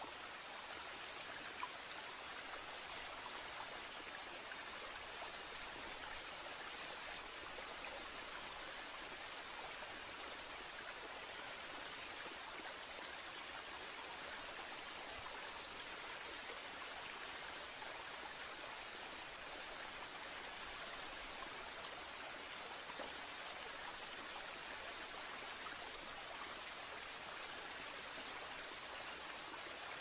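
Water of a small river spilling over a low rocky ledge and churning below: a steady, hissing rush of splashing water, mostly high-pitched with little low rumble.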